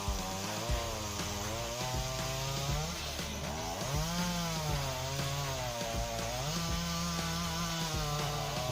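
Chainsaw cutting through a large block of wood. The engine runs at high revs, its pitch sagging and recovering several times as the bar bites into the wood and frees again.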